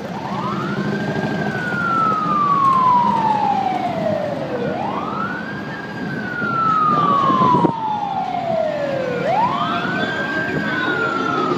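Emergency vehicle siren on a slow wail, each cycle rising quickly and falling slowly, about every four and a half seconds, three times, over steady street-traffic noise. A single sharp knock comes about two-thirds of the way through.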